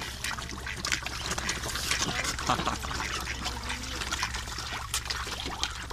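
Carp gulping and slurping at the water surface in a crowd: a dense run of quick wet smacks and splashes, over a steady low hum.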